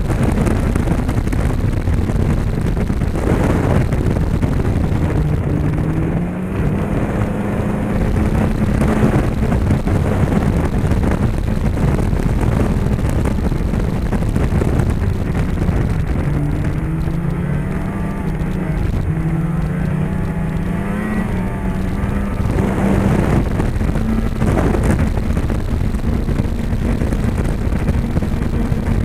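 Polaris Rush 600 snowmobile's two-stroke twin engine running under way. Its pitch dips as the throttle eases off about six seconds in and again around sixteen seconds, then climbs back up.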